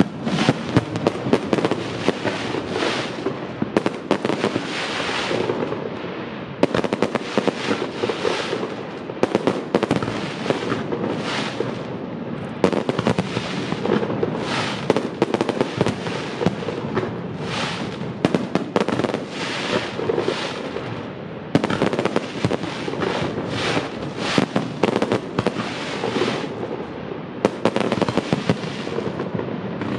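Fireworks display: aerial shells bursting overhead in a dense barrage of bangs and crackling, with brief lulls every few seconds.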